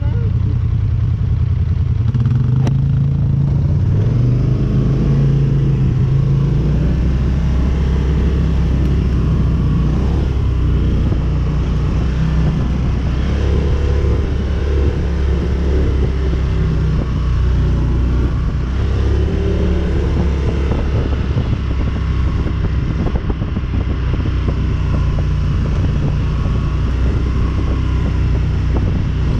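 ATV engine running under way, its note dropping about four seconds in and then holding fairly steady.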